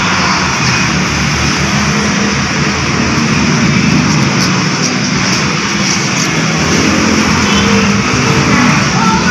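A loud, steady, engine-like mechanical drone.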